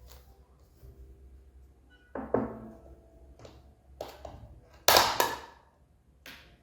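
Kitchen objects being handled and set down: a clunk with a short ringing about two seconds in, a light click about four seconds in, and the loudest, two sharp knocks about five seconds in, then a small tap near the end.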